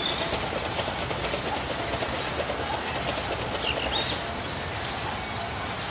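Large sawmill band saw running as a timber slab is fed through it: a steady mechanical rattle. A few short, high chirps come through about four seconds in and again near the end.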